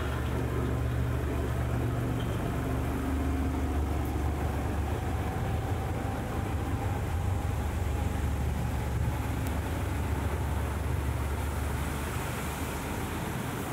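Street traffic: a motor vehicle's low engine rumble close by, easing off near the end, over the general noise of city traffic.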